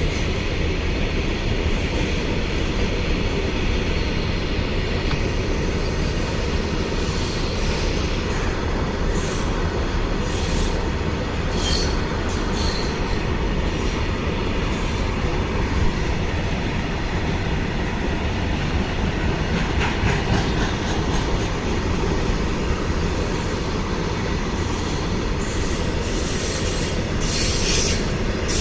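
Goods train rolling past on the main line: a steady, loud low rumble of wagon wheels on rail, with brief high screeches now and then.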